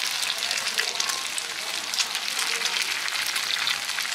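Mussels and eggs frying in hot oil in a wide pan: a steady sizzle full of fine crackles.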